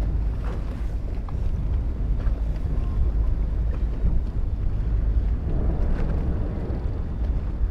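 Wind buffeting the microphone on a fishing boat at sea: a steady low rumble with boat and water noise underneath and a few faint ticks.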